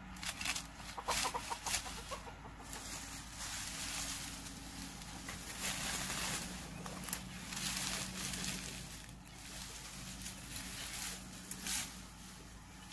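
Chickens clucking and squawking in short repeated calls, busiest in the first couple of seconds, with brush rustling as a stick pushes through the undergrowth.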